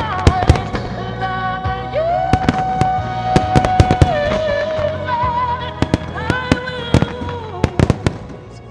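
A fireworks display: aerial shells burst in sharp bangs, in several clusters, over music with long held melodic tones. The bangs thin out and the sound fades near the end.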